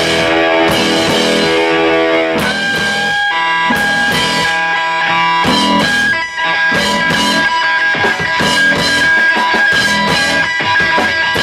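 A rock band playing live: guitar holding sustained notes and chords over a drum kit.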